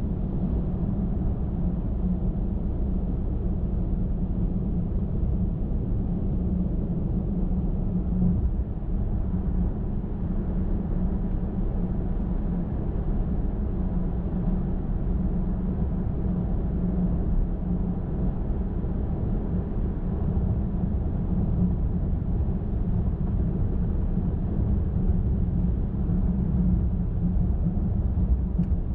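Car driving at steady highway speed: a constant low rumble of tyres on the road and engine.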